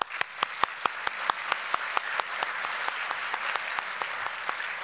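Audience applause: a dense patter of many hands clapping, with one person's sharp claps standing out close by at about five a second.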